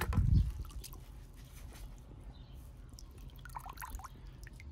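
Faint scattered small clicks and light taps over a low steady hum, with a soft knock right at the start.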